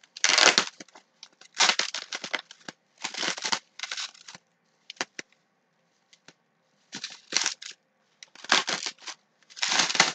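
Plastic bubble wrap being pulled open and unwrapped by hand, crinkling and crackling in a series of short bursts with a lull in the middle.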